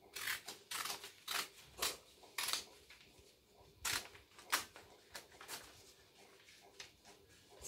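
Small children's scissors cutting through paper: about ten short, irregular snips, with a pause of about a second midway.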